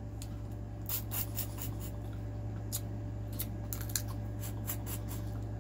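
Boiled crawfish shell being cracked and peeled apart by hand, a scatter of sharp crackles and clicks over a steady low hum.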